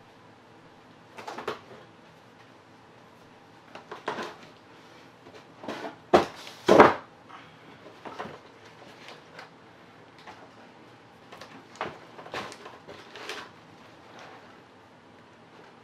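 Irregular knocks and clunks of a paint-covered painting board being tilted and set back down on its supports, with the loudest two close together about six seconds in.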